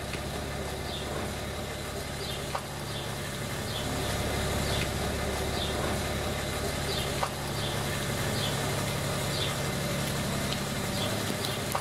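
A steady low engine-like hum, with faint short bird chirps repeating every second or so and two small clicks.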